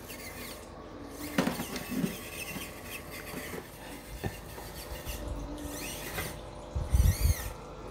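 Tiny LDARC X43 micro crawler's electric motor and gearing whining faintly as it crawls over the terrain, with a few light knocks of wheels and chassis against the surface.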